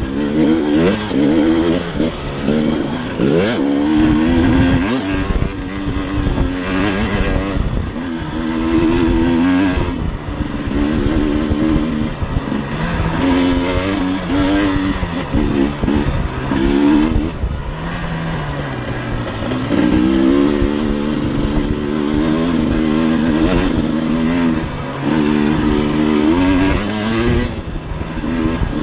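Dirt bike engine revving up and down while being ridden, its pitch rising and falling again and again with the throttle. The pitch dips low for a moment about eighteen seconds in.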